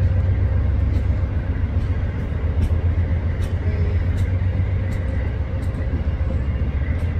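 Amtrak Northeast Regional passenger coaches rolling past close by: a steady, loud low rumble of steel wheels on the rails, with short sharp clicks every second or so.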